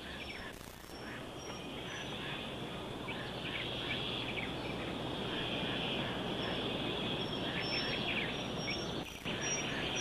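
Woodland ambience: a steady high hiss with scattered short bird chirps and brief high whistled notes.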